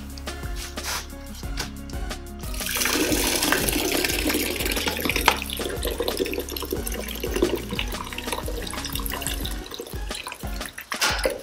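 Carbonated soda poured from two aluminium cans into a plastic tub, a splashing, fizzing pour that starts about three seconds in, over background music.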